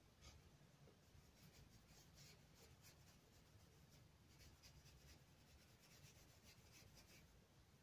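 Faint scratchy strokes of a paintbrush laying watercolour across acrylic paper: short brush strokes coming in clusters over low room hum.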